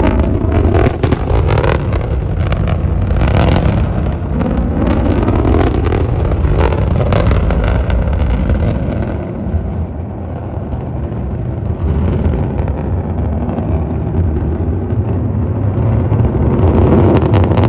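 Falcon Heavy's Merlin rocket engines heard from a distance: a loud, continuous rumbling roar with dense crackling through the first half, settling into a steady rumble that swells again near the end.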